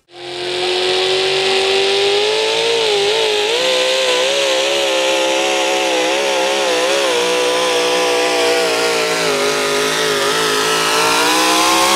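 Supercharged engine of a 4WD pulling truck running flat out under the load of the sled, a loud high-revving scream that cuts in abruptly. Its pitch wavers for a few seconds in the middle, then holds steady and climbs near the end.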